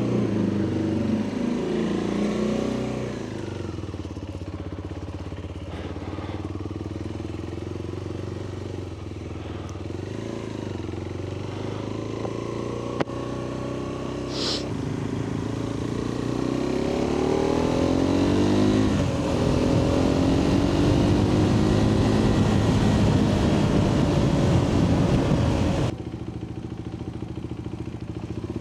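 Adventure motorcycle engine running on the move, its pitch rising and falling as the throttle opens and closes. A sharp click comes about 13 seconds in, and the engine drops quieter near the end.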